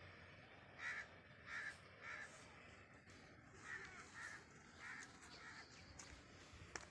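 A bird cawing faintly, in two runs of three or four short harsh calls: one about a second in, another about halfway through.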